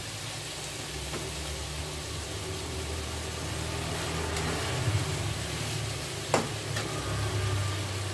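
Vegetables sizzling in a wok while a metal spatula stirs them, scraping the pan, over a steady low hum. About six seconds in, the spatula strikes the wok with one sharp clack.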